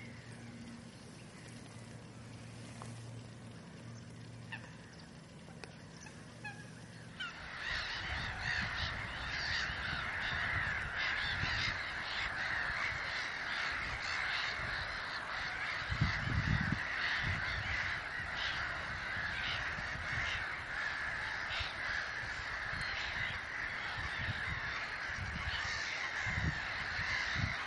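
A faint steady low hum, then about seven seconds in a dense chorus of many birds calling harshly at once starts abruptly and carries on without a break.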